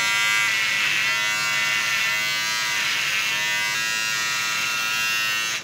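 A small electric motor running with a steady high-pitched buzz. Its pitch shifts slightly a few times, and it cuts off suddenly near the end.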